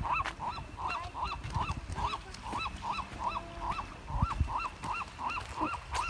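A bird calling in a rapid, even series of short repeated notes, about three a second, keeping on without a break.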